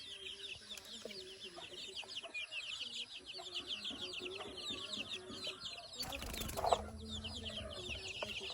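A brood of chicks peeping continuously, many short falling high-pitched peeps overlapping, with lower clucking calls underneath. A brief rustle or knock comes about six seconds in.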